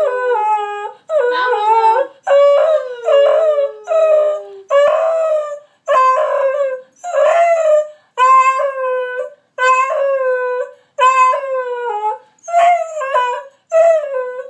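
Two beagles howling and yelping in a run of short howls, about one a second, each dropping in pitch at its end. Their voices overlap in the first few seconds, one holding a long low howl under the other.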